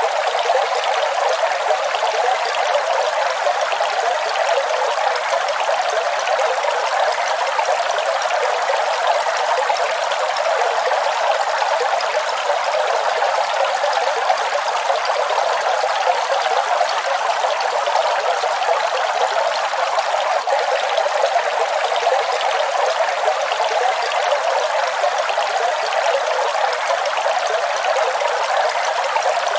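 Waterfall, water falling and splashing in a steady, even rush with no breaks, strongest in the middle pitches and with little low rumble.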